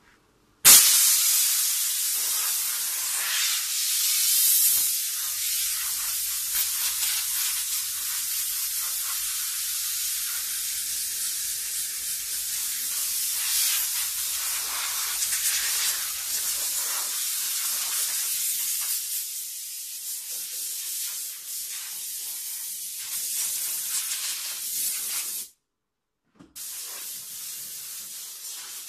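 Steam cleaner nozzle hissing steadily as steam is blasted into a car's interior. The hiss starts abruptly about a second in and breaks off briefly near the end.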